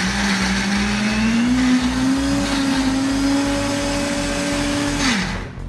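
Small electric blender with its dry-grinding jar running on a dry paste of garlic, chilies and dried shrimp with no liquid in it, which makes it hard going. The motor's pitch climbs over the first couple of seconds, holds steady, then drops as it winds down near the end.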